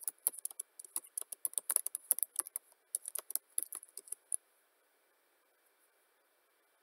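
Typing on a computer keyboard: a quick, irregular run of key clicks that stops about four seconds in, as a web search for emission figures is entered.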